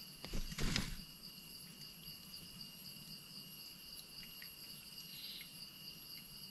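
A steady chorus of forest insects, several shrill drones held at fixed high pitches. About half a second in, a short loud burst of noise, like rustling or handling, briefly covers it.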